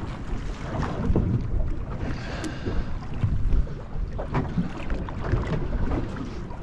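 Wind buffeting the microphone on a small boat at sea, with choppy water washing against the hull and scattered knocks of gear being handled on deck.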